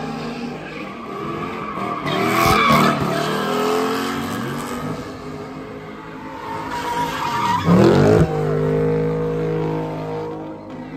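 A car's engine revving hard with its tires squealing and skidding, as in sideshow donuts. The engine note rises and falls, loudest about two and a half and eight seconds in.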